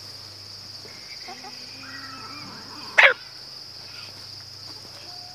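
Crickets chirring steadily, with one loud, short animal call about three seconds in.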